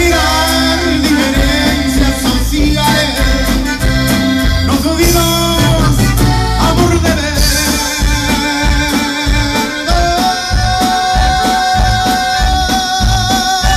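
Live Tejano band playing an instrumental passage: accordion carrying the melody over electric bass, acoustic guitar and drums with a steady beat. From about ten seconds in the accordion holds one long, slightly wavering note.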